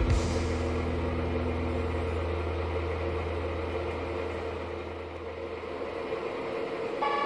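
A steady motor-like drone with a low hum and several held tones, easing off after about four seconds. Near the end a higher steady tone starts.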